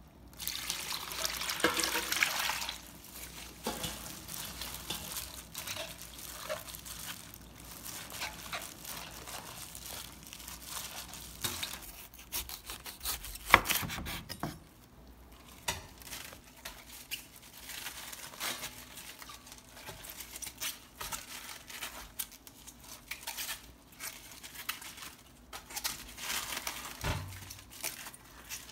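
Liquid poured from a steel bowl over napa cabbage leaves in a stainless bowl, splashing for the first two seconds or so. About halfway, a kitchen knife cuts through the base of a napa cabbage onto a wooden board with one sharp knock, and later the leaves are pulled off one by one with a run of small crisp snaps and rustles over the steel bowl.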